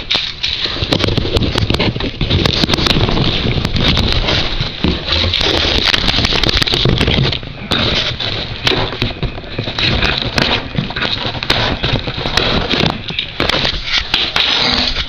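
Cardboard shipping box being opened by hand: cardboard and packing scraping, crackling and rustling steadily, with many sharp crackles.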